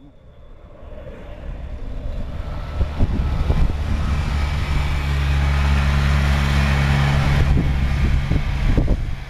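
UTA TRAX light rail train running past close by on snow-covered track: its rumble builds over the first few seconds, then a steady low electric hum with a wash of wheel-on-rail noise and a few knocks, dropping away near the end.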